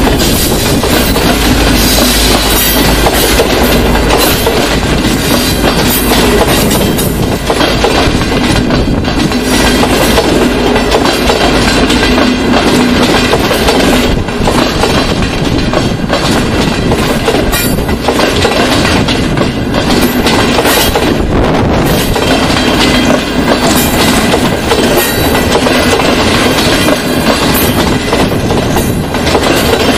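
Passenger train coaches rolling past a level crossing, loud and continuous, with the repeated clack of wheels crossing rail joints.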